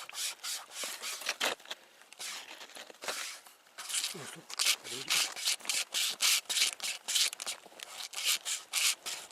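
Pocket string saw drawn back and forth through a wooden log by two people pulling in turn, giving quick rasping strokes about three a second. The strokes thin out and go quieter about two seconds in, then pick up again at full pace.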